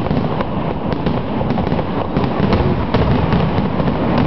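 Aerial fireworks shells bursting in quick succession: a continuous rumble of booms with many sharp cracks and bangs, several a second.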